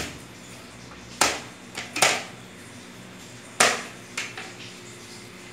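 Kitchen knife knocking against a cutting board in about five sharp, unevenly spaced strikes, cutting garlic cloves.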